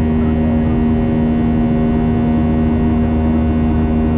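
Boeing 737 jet engines droning steadily, heard from inside the passenger cabin as the airliner climbs after take-off, with a constant hum over the rushing noise.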